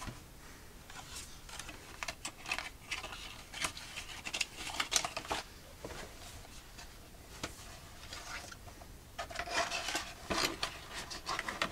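Cardboard packaging handled and slid off a table: scattered light taps, scrapes and rustles, thinning out in the middle and picking up again near the end.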